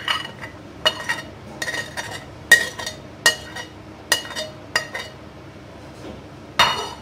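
Spoon knocking and scraping against a porcelain plate as diced boiled potatoes are pushed off it into a bowl: a string of short ringing clinks, one or two a second, then a louder clatter near the end.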